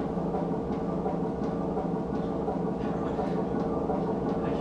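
A steady low drone of several held pitches, with faint scattered clicks over it.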